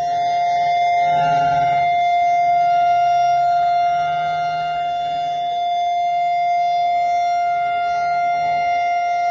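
A siren holding one steady tone with no rise or fall: the two-minute memorial siren sounded by the hostages' families to mark the moment of the 7 October attack.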